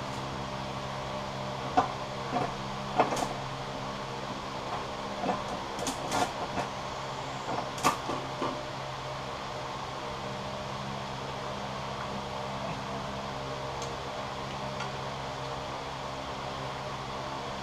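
Scattered light metallic clicks and clinks of nuts and hand tools as nuts go onto the exhaust manifold studs, mostly in the first half and the loudest near 2, 3 and 8 seconds in. A steady low hum runs underneath.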